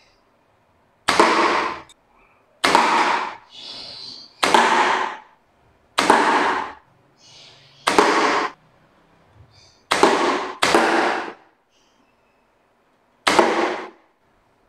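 Homemade pre-charged pneumatic air gun, with a fire-extinguisher air tank, firing eight shots in a row: each a sharp pop of released air that dies away over about half a second, roughly every one to two seconds, two of them close together near the end. Faint clicks between the shots.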